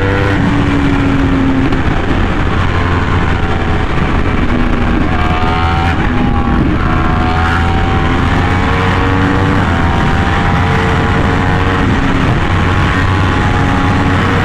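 Yamaha R1M's crossplane inline-four through an SC Project exhaust, running hard at speed. The revs climb slowly, dip briefly about six seconds in, then climb again.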